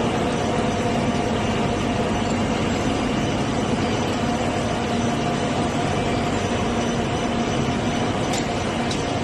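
Recycling-line machinery running steadily: a loud, even mechanical din with a constant hum through it.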